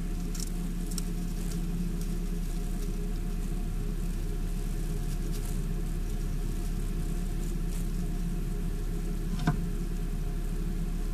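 Steady low hum of background noise with faint scattered crackles and one sharp click about nine and a half seconds in.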